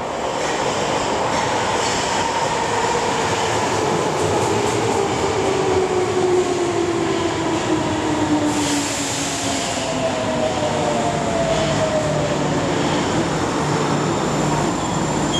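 Tokyo Metro Marunouchi Line subway train running along the platform with steady wheel-on-rail rumble. Its electric motor whine falls slowly in pitch as the train slows.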